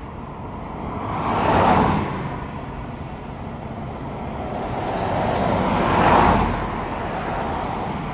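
Road traffic: vehicles passing by, the noise swelling and fading twice, loudest about a second and a half in and again about six seconds in.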